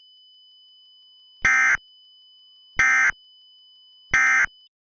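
Emergency Alert System end-of-message data tones: three identical short bursts of screeching data tones, about a second and a half apart, marking the end of the alert. A faint steady high whine sits underneath and cuts off just after the third burst.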